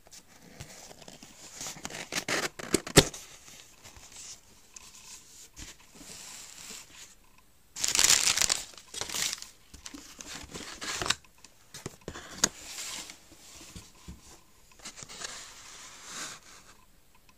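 Crumpled newspaper packing rustling and crinkling in irregular bursts as hands dig through it in a cardboard box, with a sharp snap about three seconds in as the loudest moment.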